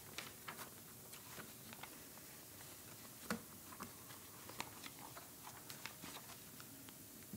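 Quiet room tone with scattered faint clicks and taps, small handling noises at the desks, the loudest a short knock about three seconds in.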